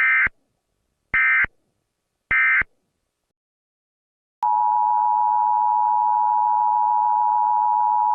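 Three short bursts of Emergency Alert System SAME data, a shrill digital warble each about a third of a second long and a little over a second apart, short enough to be the end-of-message code. After a second and a half of silence, the steady two-tone EAS attention signal starts about four and a half seconds in and holds.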